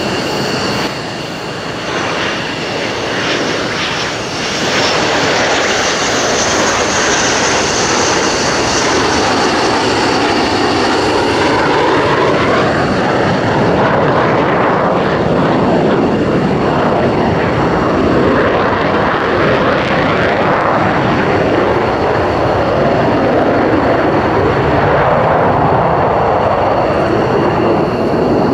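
Engines of a USAF F-15C Eagle jet fighter: twin turbofans running at high power as it flies low past and climbs away, a loud continuous jet noise. A sweeping rise in pitch comes about halfway through as it passes.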